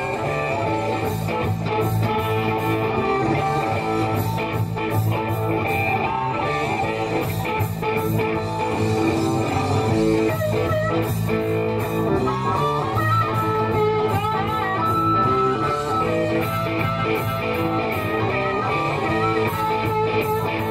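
Live electric blues band playing an instrumental passage: several electric guitars over bass, with an amplified harmonica played into a handheld mic. A long held note wavers in the middle of the passage.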